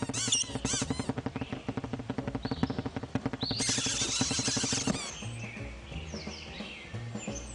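Cartoon soundtrack: music with a quick, even beat and high cartoon bird chatter in the first second. A hissing rush comes about three and a half seconds in, and the rest is quieter music with short high chirps.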